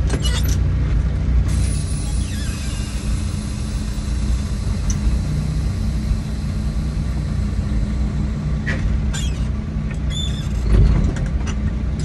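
Truck engine running steadily with a low rumble, a steady high hiss over it for most of the time, and a thud near the end.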